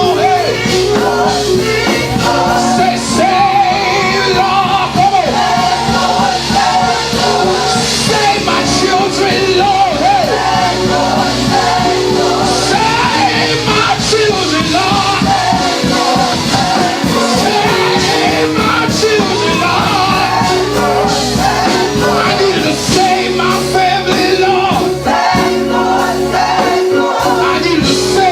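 Live gospel praise music: a singer holding wavering notes over a full band with steady bass.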